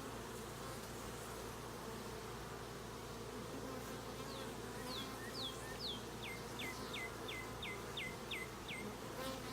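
Honeybees buzzing steadily around an opened hive. From about four seconds in, a bird sings a run of about ten clear falling whistles, roughly three a second.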